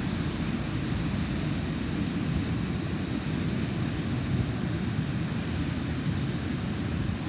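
Steady low rumble of wind buffeting the microphone, over an even hiss.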